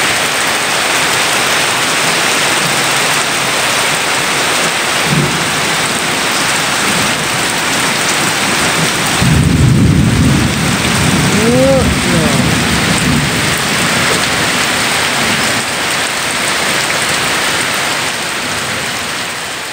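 Heavy rain pouring down steadily on concrete and a road. A low rumble of thunder comes about nine seconds in and lasts several seconds, the loudest part, with a short rising-and-falling tone over it.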